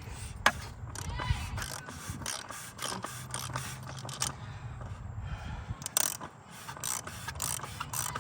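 Hand tools working on a car's oil filter housing: irregular metallic clicks and knocks, with ratchet-like clicking, over a low steady hum.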